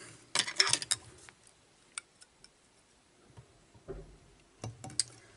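Light clicks and ticks of fly-tying tools being handled at the vise: a quick cluster of clicks in the first second, a few single ticks, a soft bump about four seconds in, and more clicks near the end.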